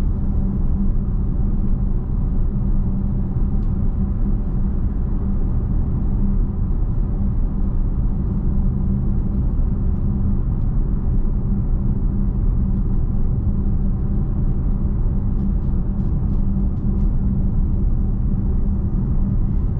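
Steady road and tyre rumble heard inside the cabin of a Tesla electric car cruising at about 35 mph, with a constant low hum and no engine note.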